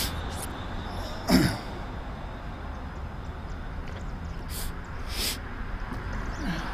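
Steady low rumble of riding on a Segway Mini along a street sidewalk, with traffic fading away at the start. About a second and a half in comes one short sound falling in pitch, and near the middle two brief hisses.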